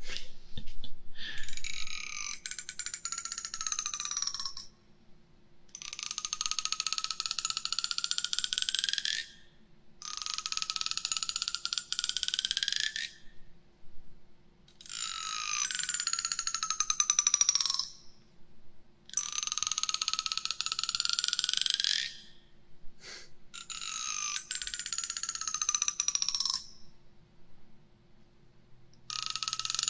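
A comb's teeth dragged slowly along close to a binaural microphone, in about seven strokes of two to three seconds each. Each stroke is a fast run of fine ticking whose pitch glides as the stroke goes.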